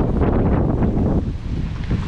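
Wind buffeting the microphone in gusts, a loud, uneven low rumble that eases about a second in.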